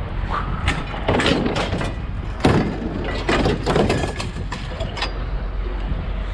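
Repeated irregular clanks and knocks of scrap metal being handled and loaded, over a steady low engine rumble.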